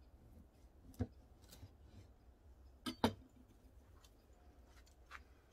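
A few sharp knocks of a knife against a wooden cutting board as a smoked pork loin ham is cut through and the knife is set down. One knock comes about a second in and a louder double knock about three seconds in.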